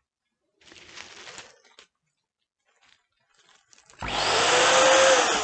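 A mini electric balloon inflator (Cool Air Dual Pro) switches on about four seconds in and runs with a loud rush of air over a motor hum, blowing air into a 20-inch gold Qualatex Starpoint foil balloon. Before it starts there is only faint rustling, about a second in.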